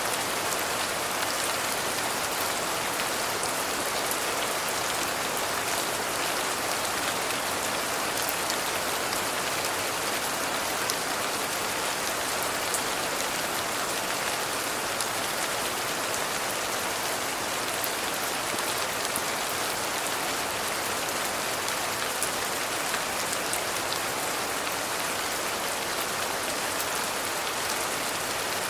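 Steady rain falling: an even, unbroken hiss with scattered sharper drop ticks.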